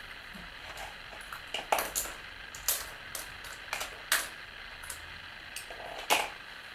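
A string of sharp, irregular clicks and taps: a dog's claws on a parquet floor and clothespins clattering into a plastic bowl on the floor.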